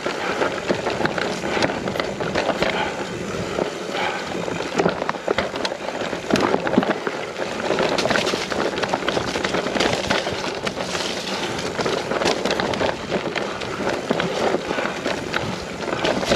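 Mountain bike riding over rough, wet ground: steady tyre noise with the rattling clatter of the bike and many sharp knocks from stones and roots.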